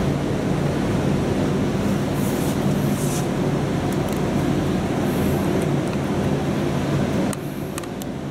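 Steady low droning hum over a broad rushing noise, which drops in level about seven seconds in, followed by a few faint clicks.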